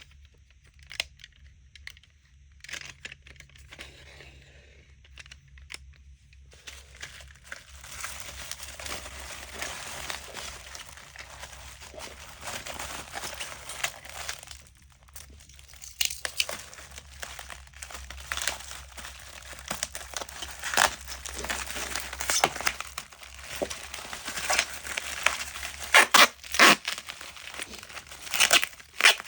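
Crinkling and tearing: scattered faint clicks at first, then dense continuous crackling from about six seconds in, with sharp loud crackles near the end.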